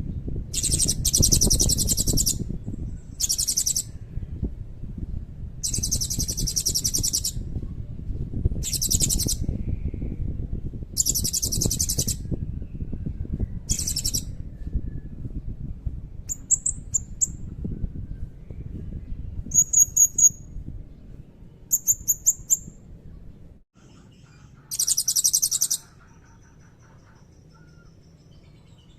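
Blue-crowned hanging parrot (serindit) singing: repeated very high, buzzy trills about a second long, with clusters of short sharp chirps in between. A low background rumble underneath cuts off suddenly about three-quarters of the way through.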